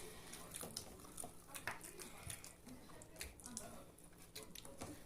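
Close-up eating sounds: a person chewing, with many small wet clicks and lip smacks.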